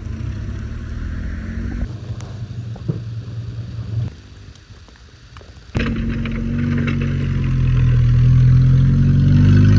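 A motor engine running steadily with a low hum. It drops away about four seconds in and starts again louder nearly two seconds later.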